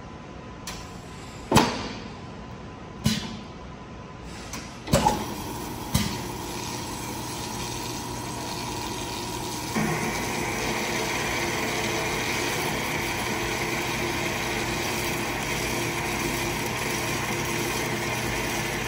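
Tormach AF50 autofeed bandsaw running its automatic cycle: a handful of sharp clunks from its feed and vise mechanism over the first six seconds, then the saw runs with a steady hum and hiss. About ten seconds in the running sound steps up and grows louder.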